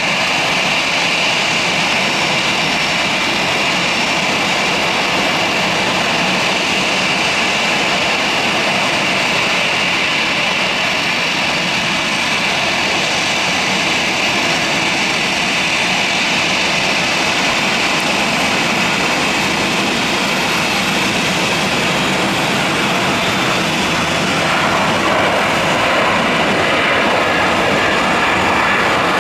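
Boeing 757-200 jet airliner landing: its two jet engines run with a steady high whine through the approach and rollout, a little louder near the end.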